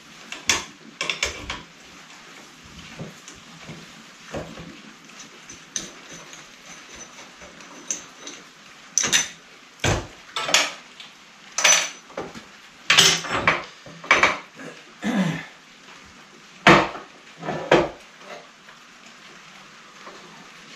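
Steel parts and hand tools clanking and knocking on a metal workbench: irregular sharp metallic knocks, more frequent and louder in the second half.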